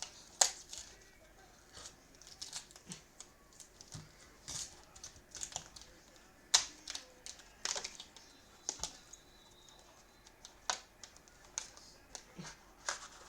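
Irregular light clicks and crackles of hands opening a trading-card hanger box and handling its cardboard, wrapper and cards, one to three sounds a second with a few louder snaps.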